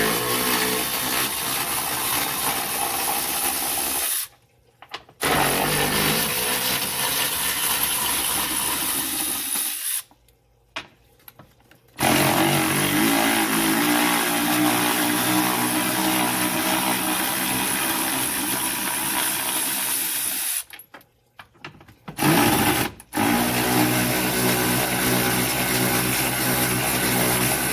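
Cordless power driver spinning out bolts: the motor runs in four long stretches of a few seconds each, stopping briefly between them, one run per bolt.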